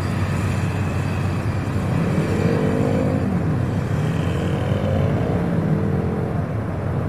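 Several motorcycles running at low speed, their engine pitch rising and falling a few times as the riders throttle on and off while passing around the course.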